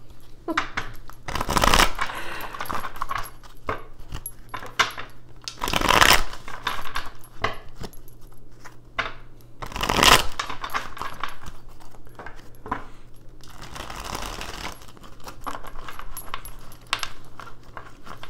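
Tarot cards being shuffled and handled by hand: repeated papery swishes of the deck, the loudest three about four seconds apart, amid many small clicks and taps.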